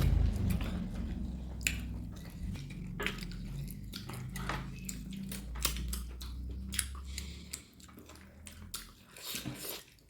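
Close-up chewing and biting: a run of sharp crunchy clicks and wet mouth sounds, over a low hum that drops away about seven seconds in.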